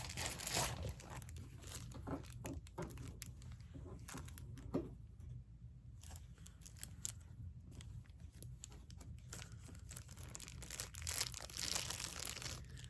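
Packaging rustling and crinkling as jewelry tools are unwrapped and handled, with scattered small clicks and taps.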